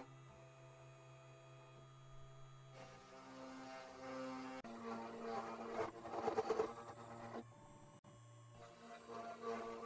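Two Trees TTC450 CNC spindle running with a steady hum while a single-flute end mill cuts into a wooden board. About halfway through the cutting noise grows rougher and louder, and the sound changes abruptly several times.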